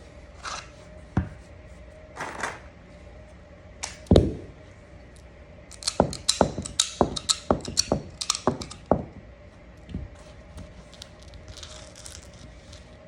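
Handling of a Smith & Wesson M&P 9mm pistol during cleaning: a couple of short scrapes, a heavy knock about four seconds in, then a quick run of about a dozen sharp clicks.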